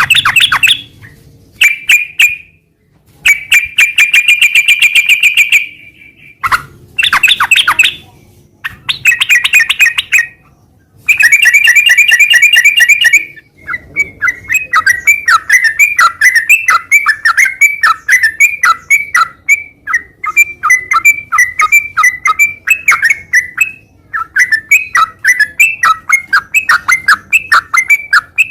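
Yellow-vented bulbul (trucukan) singing vigorously without letting up. The first half is short bursts of fast chattering notes broken by brief pauses; from about halfway it runs on as one continuous stream of quick, rapidly repeated notes.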